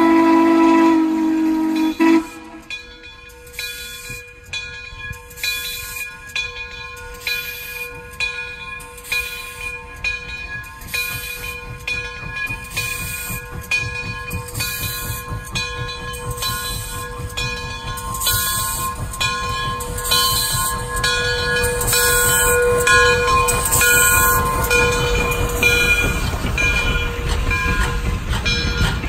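A steam locomotive's whistle blows loud and steady for about two seconds. Then Frisco 1630, a 2-10-0 steam locomotive running light, chuffs in an even beat of roughly one exhaust a second. The chuffs and a low rumble of wheels on rail grow louder as it comes close and passes.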